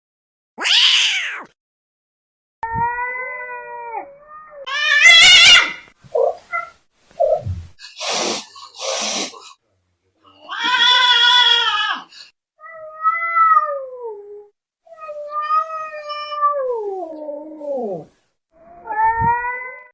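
Angry domestic cats yowling and hissing in a series of separate calls with short silences between them. There is a loud, high screech about five seconds in, and long yowls that slide down in pitch in the second half.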